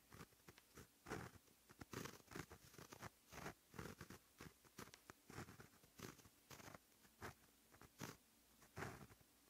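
Quiet close-up sound of a pen tip writing on textured paper: short scratching strokes, several a second in an irregular rhythm, as individual characters are formed.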